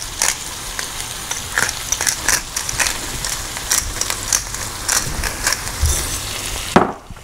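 Hand pepper mill being twisted to grind fresh peppercorns, a run of irregular crunching clicks over onions sizzling in hot oil and butter. A sharp knock comes shortly before the end.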